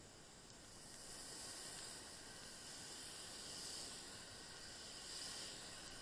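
Steady hiss that swells and fades gently a few times: tyres on a rain-soaked road.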